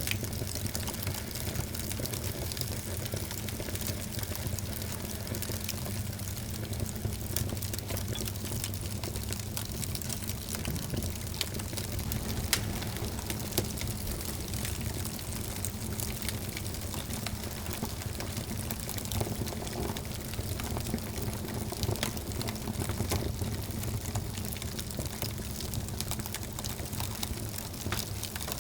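Wood fire burning in a fireplace: a steady rush of flames with scattered sharp crackles and pops.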